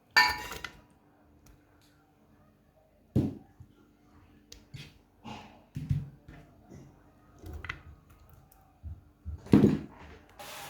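Kitchen utensils and dishes being handled: a ringing clink near the start, then a few scattered knocks and clunks.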